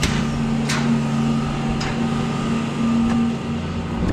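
Steady hum of milking-parlour machinery running during milking, with a few sharp clicks or knocks scattered through it.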